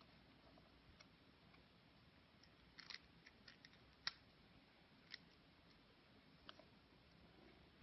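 Faint, scattered clicks and taps of small objects being handled, about half a dozen, the sharpest about four seconds in, over near silence.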